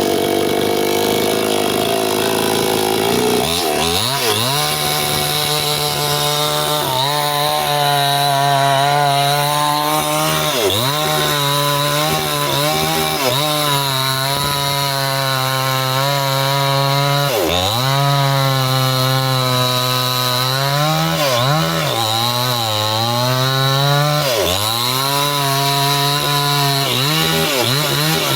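Stihl two-stroke chainsaw running at high revs while cutting through a log. For the first few seconds it gives a dense, rough sound; after that the engine pitch sags and recovers over and over as the chain bites into the wood and frees up.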